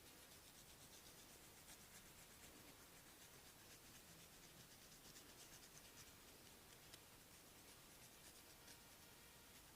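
Faint scratchy rubbing of a masseur's hands on hair and scalp during a head massage, with many light ticks.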